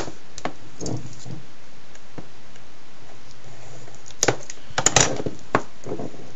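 Plastic shrink wrap being peeled and torn off a Blu-ray steelbook case, crinkling in a few sharp crackles, most of them bunched together a little past halfway.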